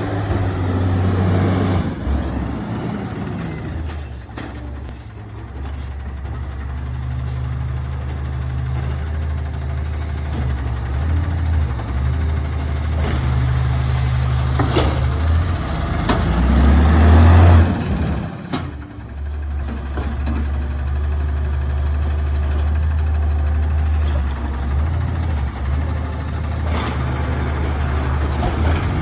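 Garbage truck's engine running steadily, with two short air-brake hisses, one about three seconds in and another about eighteen seconds in. The engine is at its loudest just before the second hiss.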